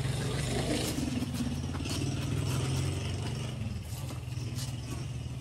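A steady low engine hum, with scattered light, sharp taps: the slaps of boxing gloves in light sparring.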